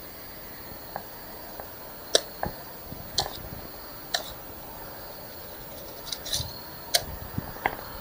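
Irregular sharp clicks and small taps from handling a fish and a green stick while the fish is threaded onto a stringer, a few close together near the end.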